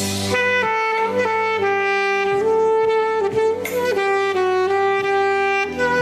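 Yamaha YAS-275 alto saxophone playing a slow melody of held notes, stepping from one pitch to the next.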